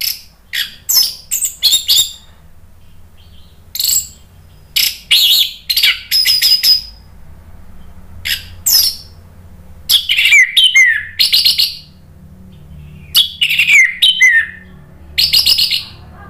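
Orange-headed thrush (anis merah) singing loudly in clusters of short, high, varied notes, some sliding down in pitch, with short pauses between phrases. A faint low hum runs underneath.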